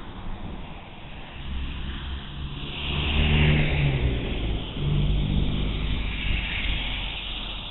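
Motor vehicle traffic passing on a city street: engine sound builds, is loudest around the middle, briefly eases and swells again, then fades away, with tyre hiss over it.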